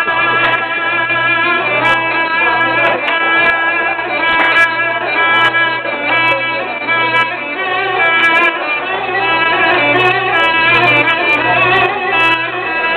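Instrumental Turkish folk music: a sustained, fiddle-like melody over a steady low pulse.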